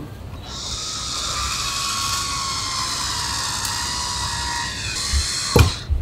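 Electric wine opener's motor whirring steadily for about five seconds as it screws into and draws the cork from a wine bottle. The whir stops about five and a half seconds in, followed by a sharp knock.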